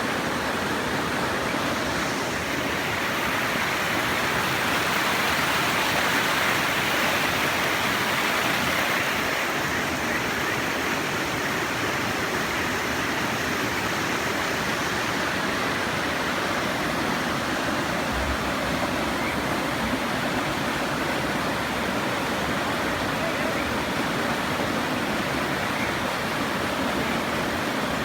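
River water rushing steadily over rocks, with faint, brief whistling calls of Kajika frogs (Buergeria buergeri) now and then above it.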